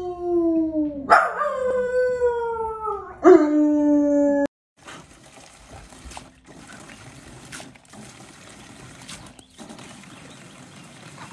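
Small dog howling: three long calls, each falling in pitch, the last cut off abruptly about four and a half seconds in. After that, the much quieter hiss and splash of a garden hose stream spraying into a plastic wading pool, with a few sharp ticks.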